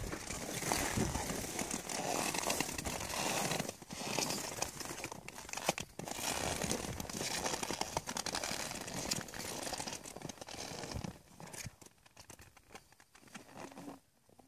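Crunching and crinkling of crusted snow under a horse's hooves and a handler's boots as they move about, dying down over the last few seconds as they stand still.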